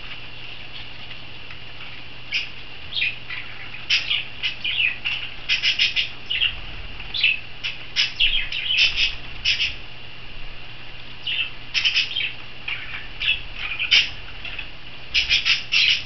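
Pet budgerigars and a peach-faced lovebird chirping and squawking in clusters of short, sharp, high calls, starting a couple of seconds in, with wings flapping at a water bath.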